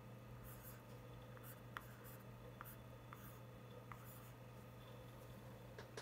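Stylus writing on a Boogie Board LCD writing tablet: short, faint scratching strokes with a few light clicks as letters are written. A steady low hum runs underneath.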